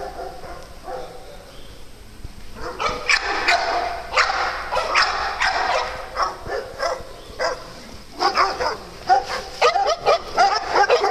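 Several dogs barking, in scattered barks from about two and a half seconds in, growing thicker and almost continuous near the end.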